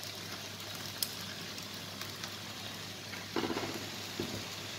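Onions sizzling as they sauté in a frying pan, a steady frying hiss, with a brief louder clatter about three and a half seconds in.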